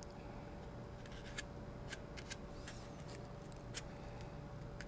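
Faint, scattered little clicks and light scraping as a thin applicator spreads glue around the edge of a foam fuselage section, over a faint steady tone.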